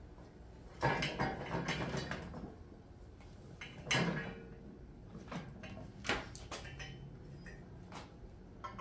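Steel hitch frame and square-tube toolbar clanking and rattling as they are shifted together by hand, with one sharp metal knock about four seconds in and a few lighter clicks after.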